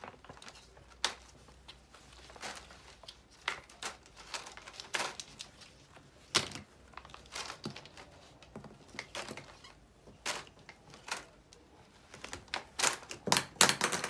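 Hard plastic shelf panels and tubes knocking and clicking together as they are handled, in irregular single taps, with a quick run of louder clattering knocks near the end.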